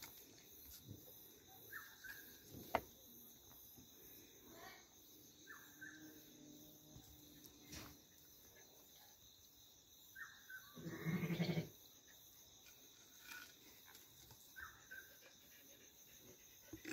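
A ram bleats once, loudly and for under a second, about two-thirds of the way through. Under it runs a steady high chirring of insects, with a sharp click near the start.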